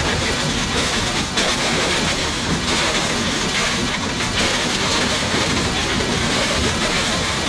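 Steady rushing noise with no music and no clear pitch or beat.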